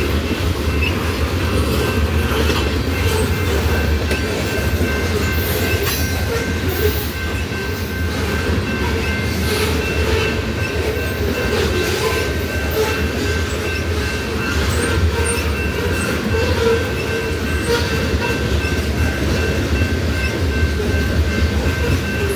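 Loaded covered hopper cars of a grain train rolling past at speed: a steady rumble with a continuous clatter of wheels over the rails. A thin, steady high squeal from the wheels comes in about two seconds in.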